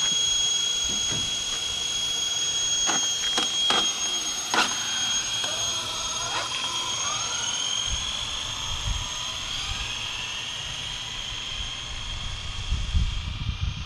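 High-pitched whine of an Arrma Felony RC car's brushless electric motor and drivetrain. It holds a steady pitch at first, with a few sharp clicks, then glides in pitch as the car pulls away down the road. A low rumble comes in near the end.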